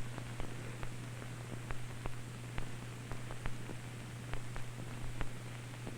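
Steady low hum with hiss and irregular faint clicks and pops, the background noise of an old 1970s film soundtrack.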